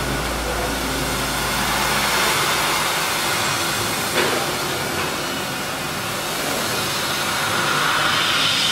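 Laser cutting machine cutting steel sheet: a steady hiss from the cutting head's assist-gas jet and the cut, with one short click about four seconds in.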